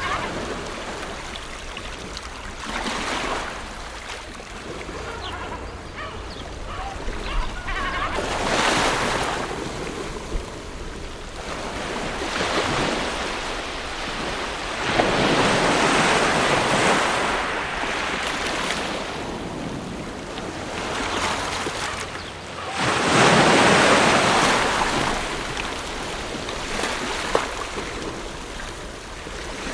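Ocean waves breaking and washing up the shore in slow surges several seconds apart, the biggest wash about three quarters of the way through.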